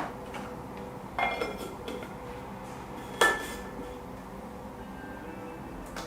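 Hard kitchenware clinking: a few light ringing clinks about a second in, then one sharper, louder clink that rings briefly about three seconds in.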